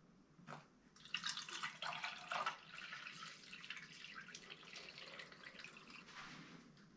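Water pouring from a plastic watering can into a shower floor drain, a faint splashing trickle that starts about a second in and tapers off near the end, filling the drain's trap.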